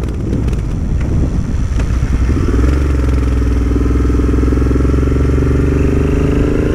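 Motorcycle engine running while riding, a low rumble at first; about two and a half seconds in its note steadies and begins to climb slowly as the bike accelerates.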